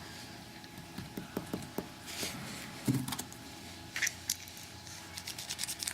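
Small metal clicks and taps as lock pins and springs are taken out of a Mul-T-Lock 7x7 cylinder, with a duller knock about three seconds in.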